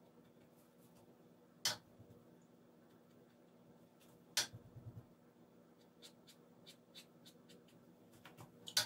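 Paintbrush working on watercolour paper: three sharp taps a few seconds apart, and about a second and a half of light ticks in between.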